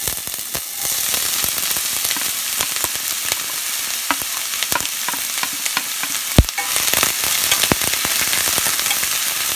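Chopped onions sizzling in hot oil in a stainless steel pan, the sizzle starting as they are tipped in, then stirred with a wooden spatula. A steady hiss with many small pops and clicks, and one sharp knock about six seconds in.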